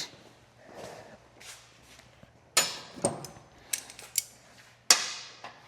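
Hand tools and motorcycle parts being handled: a handful of sharp metallic clicks and knocks, the first and loudest about two and a half seconds in.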